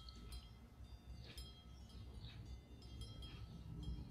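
Faint ringing, chime-like metallic tones, struck softly about once a second, over a low rumble.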